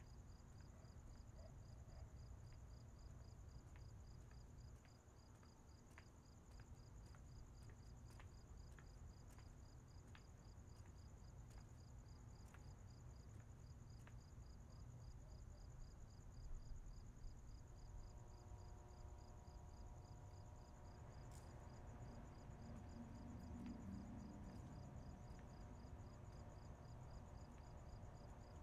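Faint night ambience: crickets chirping in rapid, even pulses over a low, steady rumble. From about two-thirds of the way in, faint steady tones join in.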